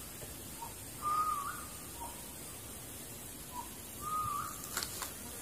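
A bird calling twice, each call a short pip followed by a wavering whistle, about three seconds apart. Two faint clicks come near the end.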